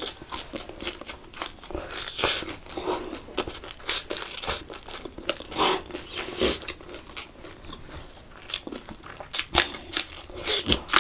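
A person chewing and crunching food in the mouth: irregular wet smacks and crisp crunches, with a few louder bites.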